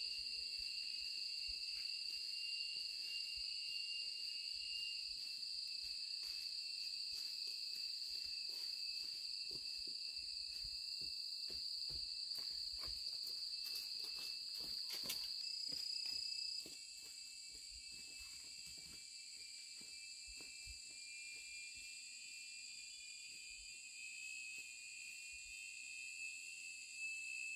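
Insects in a steady high-pitched chorus, with scattered light clicks and rustles. The chorus drops noticeably about two-thirds of the way through.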